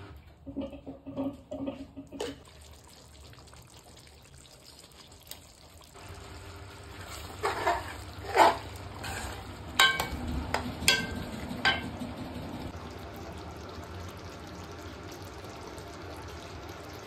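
Metal ladle stirring curry in an aluminium karahi. Scraping strokes are followed by several sharp, ringing clinks of the ladle against the pan about ten to twelve seconds in, over a steady simmering sizzle. A quick run of short taps comes in the first two seconds.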